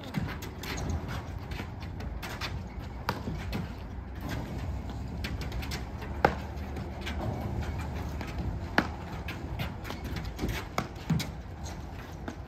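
Platform tennis doubles rally: irregular sharp knocks of paddles hitting the ball, with a few louder hits, over a steady low background hum.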